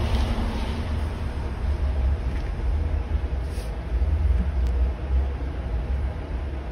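Steady low rumble, with a couple of faint light clicks about halfway through as leather pieces and a steel ruler are handled on a cutting mat.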